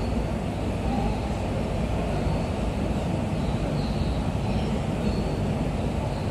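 Steady low rumble of a Toei Ōedo Line 12-600 series subway train approaching through the tunnel, before it reaches the platform.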